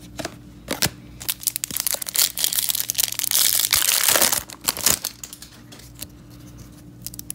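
Foil wrapper of a hockey card pack crinkling loudly as it is torn open, between about two and four and a half seconds in. Before and after it come light clicks of the cards being handled.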